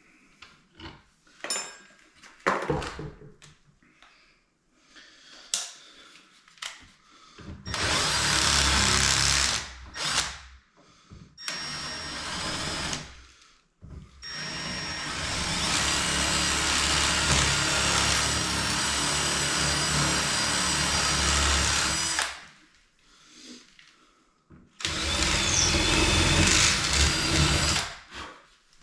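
Power drill running in four bursts, the longest about eight seconds, with small knocks and handling clicks in the pauses.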